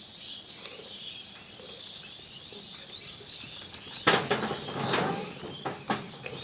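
Farmyard animal sounds: faint bird chirping at first, then from about four seconds in a cluster of loud animal calls and scuffling.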